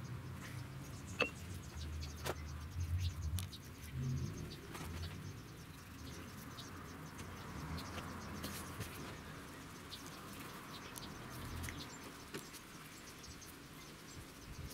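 Quiet sounds of a knife cutting raw pork neck and gloved hands handling the meat on a plastic cutting board: soft, scattered clicks and taps with a faint low rumble underneath.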